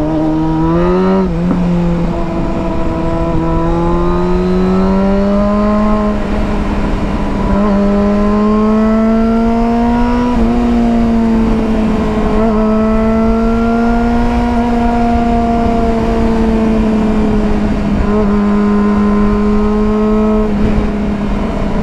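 Yamaha FZ6 Fazer's 600 cc inline-four engine heard from the rider's seat while riding. Its pitch rises, dips briefly about a second in, climbs slowly and then holds steady, over a low rush of wind and road noise.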